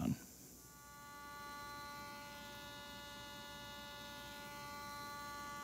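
Electronic throttle actuators of a Mercedes SL600's M120 V12 humming steadily with the ignition in position 2 as they try to resynchronise; the hum starts about half a second in and settles within a second. The owner suspects a bad throttle body.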